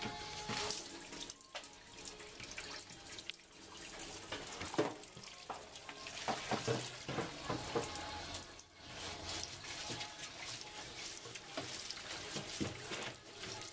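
Water running and splashing unevenly, with a short break a little under nine seconds in.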